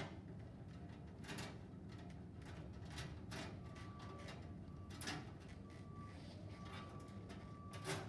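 Scattered knocks and scrapes as the unscrewed side section of a Washtech M2 passthrough dishwasher is worked loose and lifted off, about five sharp knocks spread through it.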